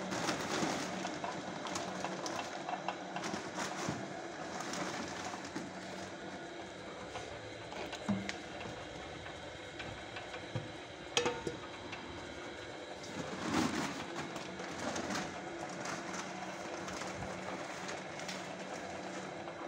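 Racca dough mixer running, its motor and drive turning the hook through pasta dough in the steel bowl: a steady hum with a few short knocks.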